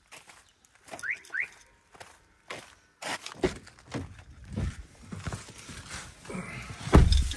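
Two short rising chirps from a car alarm being disarmed, then rustling and knocks as someone climbs into the car, and a heavy thud near the end as the car door shuts.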